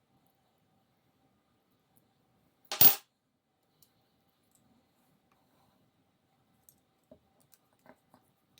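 A single sharp clatter, a quick double knock of a hard object on a hard surface, about three seconds in, followed near the end by a few faint clicks of small parts being handled.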